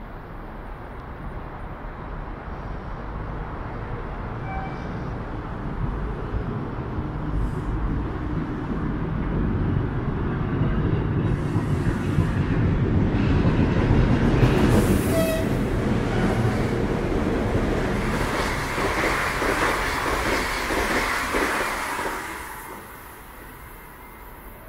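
A train passing at speed on the line. The rush of noise grows steadily louder as it approaches, stays loud for several seconds, then falls off sharply near the end.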